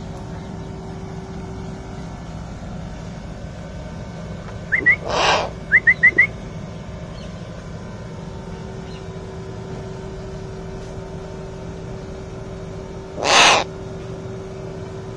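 Two short breathy hisses about eight seconds apart over a steady low hum, with a quick run of five brief high chirps about five seconds in.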